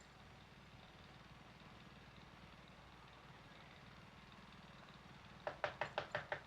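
Low, steady engine-like rumble, with a quick run of about eight sharp knocks near the end.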